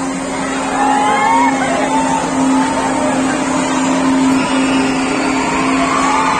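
Gondola thrill ride in motion, its drive machinery giving a steady hum under a haze of mechanical noise, with rising and falling cries from the riders.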